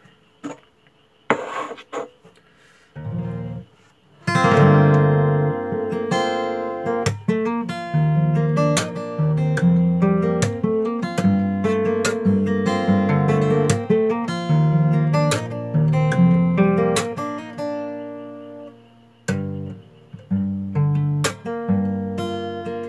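Steel-string acoustic guitar played fingerstyle. A few scattered notes and taps come first. From about four seconds in, a steady passage of melody over bass notes follows, punctuated by sharp percussive hits on the guitar. It pauses briefly near the end, then carries on.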